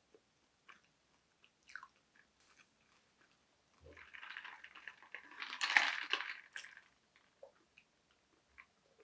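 Close-up eating sounds: faint crunchy chewing of toasted garlic bread with small scattered crunches, then a louder noisy stretch in the middle as a glass of iced latte is lifted and sipped through a straw.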